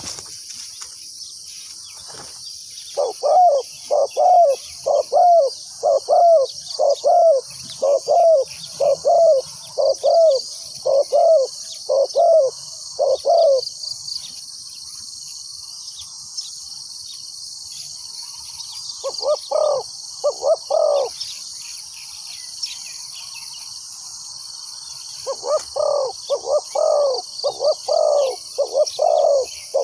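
Spotted doves cooing in runs of short, arched coo notes, about two a second: a long run of about a dozen, a short run of three, then another long run near the end. Under them runs a steady high-pitched insect drone.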